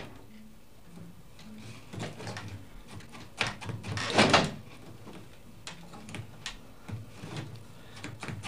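Irregular knocks and clatters, with a louder rushing, scraping noise lasting about half a second around four seconds in.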